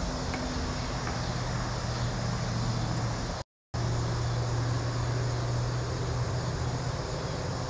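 Steady outdoor background noise: an even hiss with a constant low hum under it. The sound cuts out completely for a moment about three and a half seconds in.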